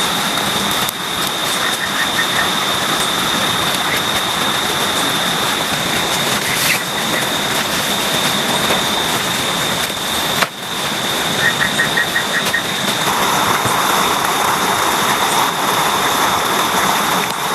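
Heavy rain falling steadily, a loud even hiss, with a steady high whine on top and a few short runs of quick high chirps.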